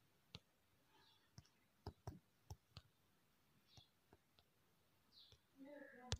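Faint, sparse clicks, about ten spread unevenly over six seconds: taps on a phone's touchscreen keyboard while typing.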